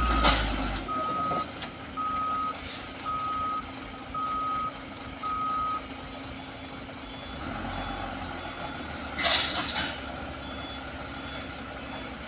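Reverse-warning beeper on a Mitsubishi Fuso diesel truck, beeping about once a second over the low rumble of its engine as the stuck truck tries to back out; the beeping stops about six seconds in. The engine picks up again about halfway through, with a short hiss around three quarters of the way through.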